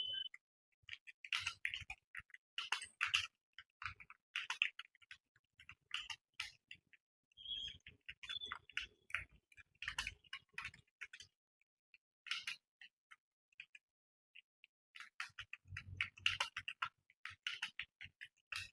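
Computer keyboard being typed on: quick irregular runs of key clicks, thinning to a few scattered keystrokes for several seconds in the middle before picking up again.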